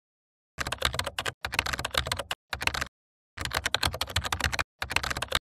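Computer keyboard typing: five quick runs of keystrokes with short pauses between them.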